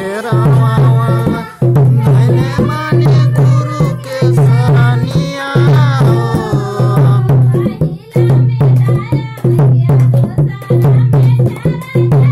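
Man singing a folk song with a wavering, drawn-out melody over music with drums and percussion keeping a steady beat on a deep pulsing bass note. The voice fades out a little past halfway and the drums carry on.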